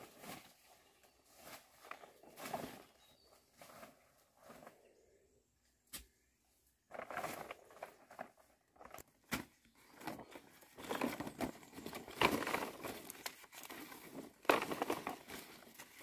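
Large dong leaves and their stalks rustling as they are picked and handled in thick undergrowth, coming and going in bursts, with a few sharp snaps. The rustling drops away for a couple of seconds near the middle, then grows louder in the second half.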